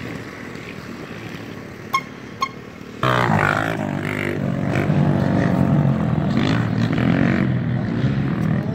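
Dirt bike engines: a faint engine for the first few seconds, with two short clicks about two seconds in, then a louder dirt bike engine comes in suddenly about three seconds in, running and revving with a wavering pitch.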